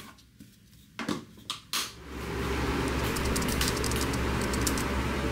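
A few light clicks and knocks, then from about two seconds in a steady low hum with an even hiss of a running ventilation unit.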